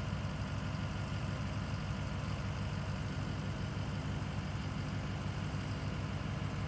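Engine of a truck-mounted Geoprobe direct-push rig idling, a steady low hum that holds even throughout.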